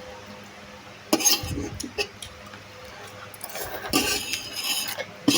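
Cutlery clinking and scraping against a dish while eating: a short clatter about a second in, and a longer run of clinks from about three and a half seconds in.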